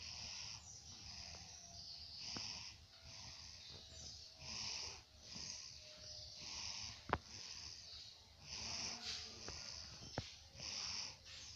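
Sleeping baby snoring: a raspy, hissing breath in and out every second or two. A sharp click about seven seconds in, the loudest sound, and a smaller one near ten seconds.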